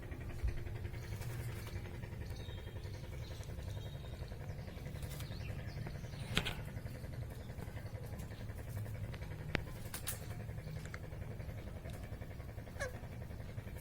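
A steady low hum, with a pet parrot giving a few faint, short chirps over it, one falling in pitch near the end.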